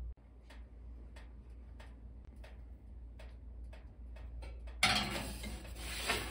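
Faint, even ticking, about three ticks a second. About five seconds in it gives way to a loud rushing scrape lasting a second and a half, as a metal baking pan is slid onto a wire oven rack.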